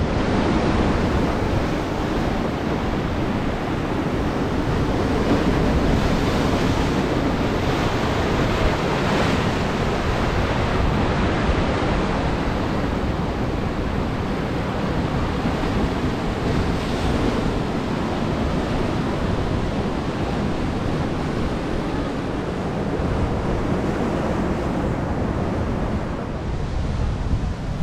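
Surf washing onto a sandy beach, a steady rush of breaking waves, with wind buffeting the microphone.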